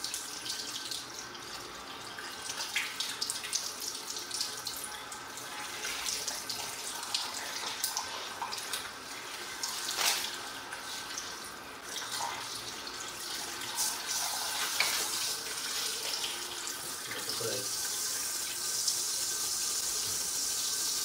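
Water running from a handheld sprayer into a salon shampoo basin as long hair is rinsed, splashing and dripping into the bowl. The spray settles into a steady hiss near the end.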